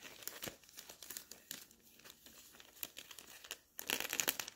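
Thick cellophane wrap film crinkling and crackling as a sheet is handled and pulled loose from the roll: quick irregular crackles, with a louder burst of crinkling near the end.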